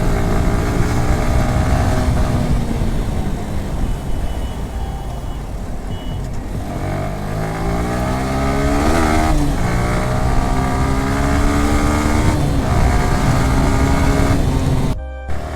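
Motorcycle engine under way, its note rising and falling several times as the rider accelerates and eases off, over steady wind and road noise. The sound cuts out briefly near the end.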